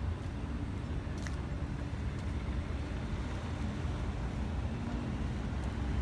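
Steady low rumble of city road traffic, cars running along the street.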